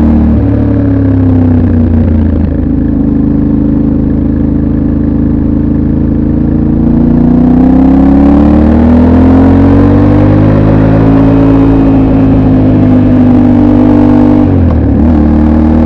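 Yamaha Ténéré 700 World Raid's parallel-twin engine running on its stock exhaust, heard from on board while riding. The revs rise and fall gently through the bends, with a brief drop about three-quarters of the way through before they pick up again.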